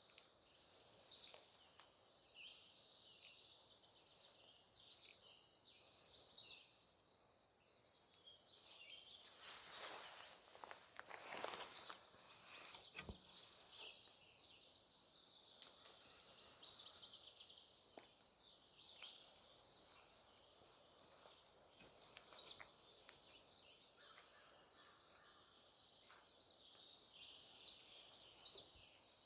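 Songbirds singing in short, high-pitched trilling phrases, with a louder phrase about every five or six seconds. A brief rushing noise passes about ten seconds in.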